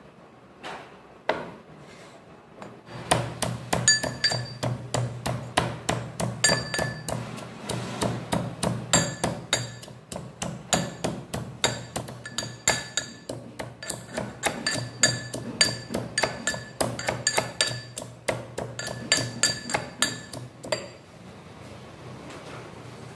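Fresh ginger being pounded with a pestle in a mortar: a long run of quick, sharp strikes, about two to three a second, some with a short ringing note. It starts with a couple of single knocks and stops about two seconds before the end.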